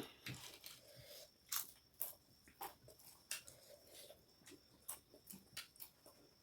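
Faint mouth sounds of people eating: chewing and lip-smacking, heard as irregular short smacks and clicks.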